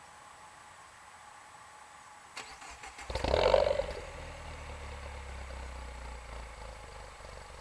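R56 Mini Cooper S's turbocharged 1.6-litre four-cylinder, with a factory JCW exhaust back box and a catted downpipe, being started. The starter cranks briefly about two and a half seconds in, the engine catches with a loud flare of revs, then settles to a steady idle.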